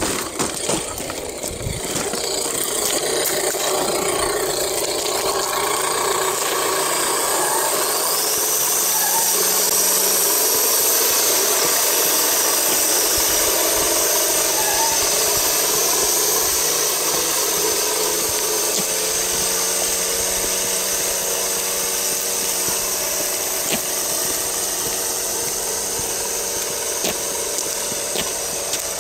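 HG P402 scale RC truck's electric motor and gearbox whining steadily as it drives, the whine stepping up in pitch about a third of the way through and then holding.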